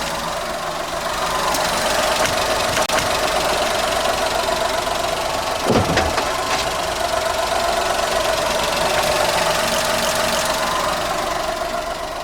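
Car engine running slowly and steadily as the car creeps forward, with one brief, sudden louder sound about halfway through.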